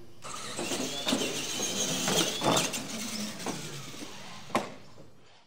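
R/C monster truck running down a tiled straight-line track: a high motor whine over the clatter of tires and chassis on the floor, with several knocks and one sharp knock near the end.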